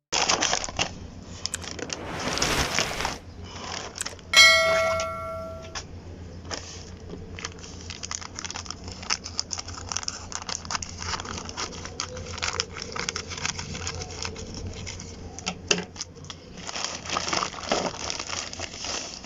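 Packaging being handled and torn open: crinkling plastic, tearing and scattered clicks and taps, over a low steady hum. About four seconds in, a short ringing tone sounds once.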